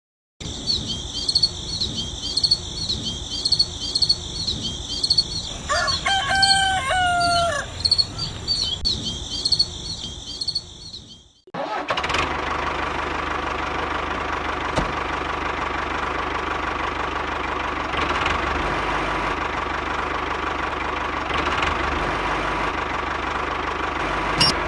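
A rooster crows once about six seconds in, over rapid high chirping that repeats about three times a second. Near the middle the sound cuts off abruptly and gives way to a steady whirring noise with a constant hum.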